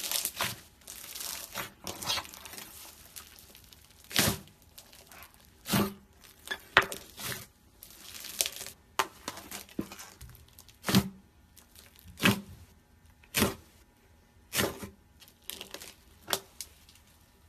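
White fluffy slime studded with small colourful beads being squeezed and stretched by hand, crackling at first and then giving sharp pops about once a second.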